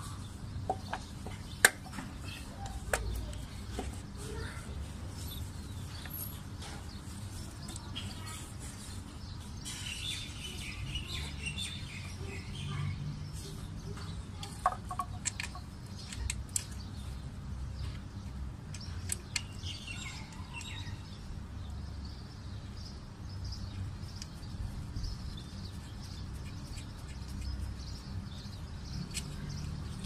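Scattered sharp metal clicks and knocks from hands refitting an ignition distributor on a car engine, the loudest about two seconds in. Birds chirp now and then over a low steady rumble.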